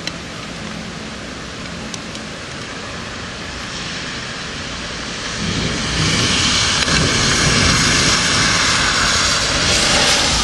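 Steady rain, with a long rolling rumble of thunder that swells up about five seconds in and holds loud to the end.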